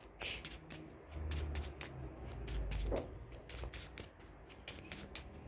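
A deck of cards being shuffled by hand: a quick, uneven run of soft papery flicks and snaps, at a moderate-low level.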